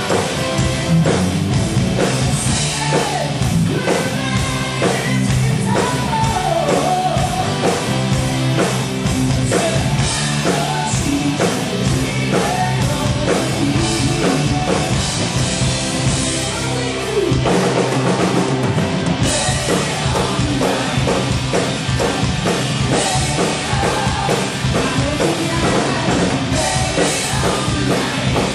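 A live rock band playing: a drum kit beating steadily under electric guitars and bass, with a woman singing lead into a microphone.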